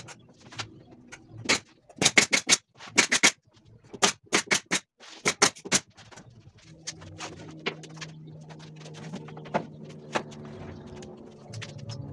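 Woodworking on a wooden bed frame: in the first half, quick runs of sharp knocks, three to five at a time. After that, a steady low hum with scattered clicks, and background music comes in near the end.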